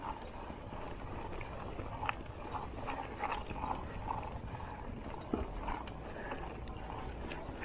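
Polygon Xtrada 5 mountain bike rolling over a rough rock slab: small irregular knocks and rattles from the bike over a steady low rumble.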